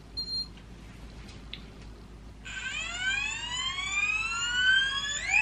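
GHD Duet Style hot-air straightener's fan motor starting up: a whine that rises steadily in pitch from about halfway through, then climbs again sharply near the end as it spins up to speed.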